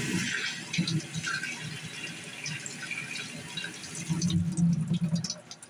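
Kitchen faucet running into a stainless steel sink as hands are rinsed under the stream, a steady splashing hiss. The water is shut off near the end.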